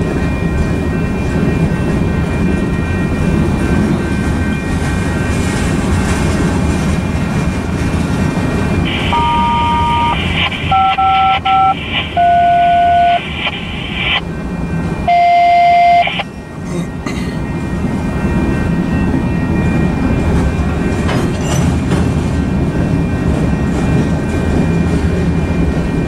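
Freight train's cars rolling steadily past a grade crossing, heard from inside a car. From about nine to sixteen seconds in, a run of loud phone keypad tones, several two-note beeps, sounds over the rumble.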